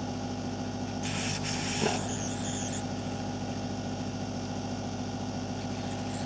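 Hot air rework gun running, its blower giving a steady hum with a few fixed tones. About a second in there is a brief hiss lasting about a second.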